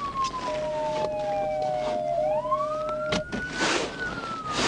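Police siren on a slow wail, its pitch falling, rising again and starting to fall once more. A second steady tone is held for about three seconds partway through, and short bursts of hiss are heard a few times.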